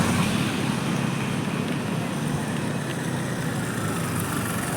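A motor vehicle engine running steadily, a low even hum over a background of noise.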